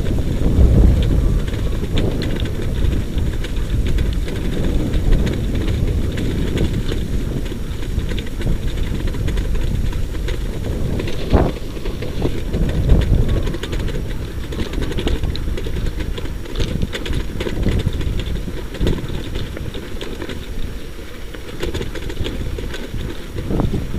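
Wheeled dryland dog-sled rig rolling fast over a wet, muddy dirt track behind a running husky team: a steady low rumble with scattered knocks and rattles, and wind buffeting the microphone.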